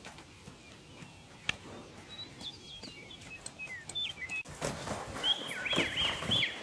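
Small birds chirping outdoors in a run of short, high chirps and quick glides. They start about two seconds in and get busier in the last couple of seconds, with a few faint clicks between.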